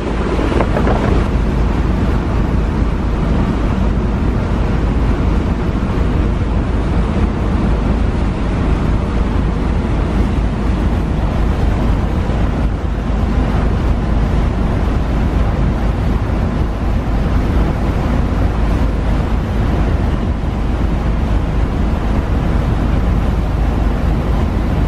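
Steady wind buffeting the microphone aboard a moving ferry, with a heavy low rumble and rushing water beneath it.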